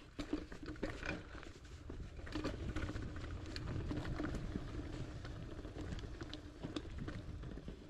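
Hardtail mountain bike rolling down a rocky dirt trail: steady tyre noise with frequent clicks and rattles as it goes over rocks and roots.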